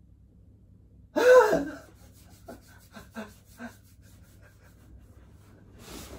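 A man's loud, short pained cry about a second in as he pulls his sore right hamstring toward his chest, followed by a few short faint grunts and a breathy exhale near the end. The pain is from a hamstring in no state to run.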